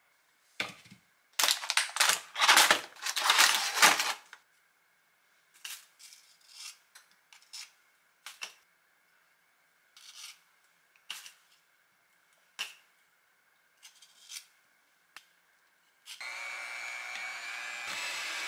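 Plastic packaging crinkling loudly for a few seconds, then scattered light clicks and scrapes of a knife scraping the cream filling off Oreo cookies into a ceramic bowl. About 16 seconds in, an electric hand mixer starts up and runs steadily, beating cream cheese in a glass bowl.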